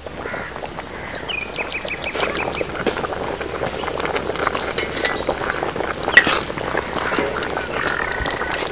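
Small birds singing rapid trills of evenly repeated high chirps, several runs, over a steady crackling, bubbling noise from the curry boiling hard in the iron wok. One sharp click stands out about six seconds in.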